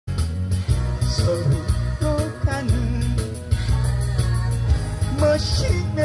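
Live band music played through PA speakers: a melody line with vibrato over a steady beat, with acoustic guitar in the band; no words are sung yet.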